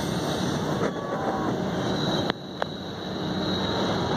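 Steady vehicle rumble with wind noise, broken about halfway through by two sharp clicks a third of a second apart, after which the rumble is a little quieter.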